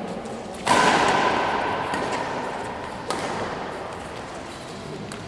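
Badminton rackets hitting the shuttlecock during a rally, with a loud strike about 0.7 s in that echoes and dies away over a couple of seconds, and a second sharp crack about 3 s in.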